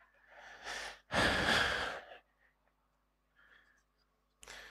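A long breath blown out into a close headset microphone, about a second long, with a fainter breath just before it and a short one near the end.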